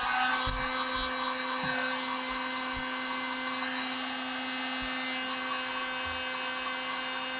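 Handheld electric heat gun switched on and running steadily: a steady motor hum under the rush of its blown air.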